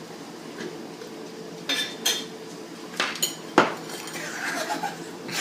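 Dishes and cutlery clinking and knocking as food is handled on a kitchen counter: about five sharp clinks from about two seconds in, the last one the loudest, over a steady low hum.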